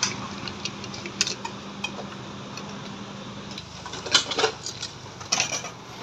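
Steel ladle and wire-mesh strainer clinking against a large stainless steel pot: a few scattered clinks, then a cluster of louder ones about four seconds in and again near the end. A low steady hum stops about three and a half seconds in.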